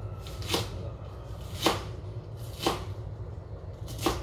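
Knife chopping cabbage on a plastic cutting board: four sharp chops, about one a second.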